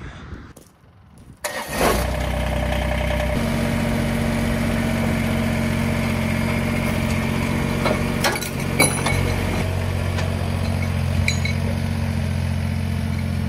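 Kubota BX23S tractor's small three-cylinder diesel running steadily, its note changing about three seconds in as the revs pick up. A couple of sharp knocks come about eight to nine seconds in.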